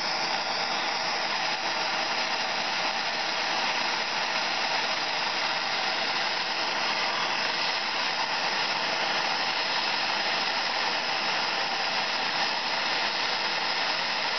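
Handheld Ace gas torch burning with a steady hiss, its blue flame held on a threadlocked bolt of a brake disc to heat it until the blue Loctite softens.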